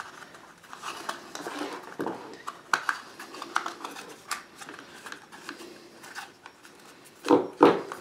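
Irregular small plastic clicks and rustles of handling: Wago lever connectors and their wires being pressed into the compartments of a plastic Wago junction box, the cables shifting against it.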